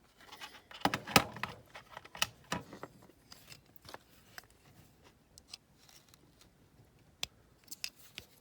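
Irregular small clicks, taps and scrapes of a screwdriver working at a die-cast metal toy car body to push out its tow hook. A sharp click about a second in is the loudest.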